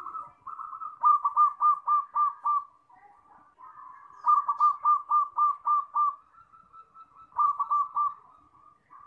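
Zebra dove (perkutut) song: three runs of quick, clipped coos on one pitch, with softer drawn-out notes between the runs.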